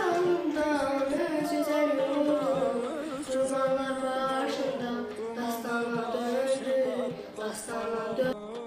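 A young girl singing unaccompanied, holding long, wavering notes.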